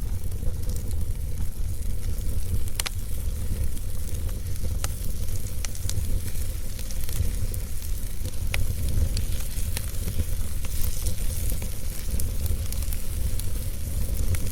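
Wood fire burning, with a steady crackling hiss and a strong low rumble beneath. A few sharp pops come at irregular moments.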